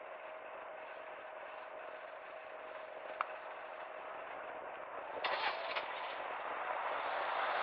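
Steady road and traffic noise of a car driving in city traffic, with a single sharp click about three seconds in and a couple of brief rattles a little after five seconds; the noise grows louder near the end as the car picks up speed.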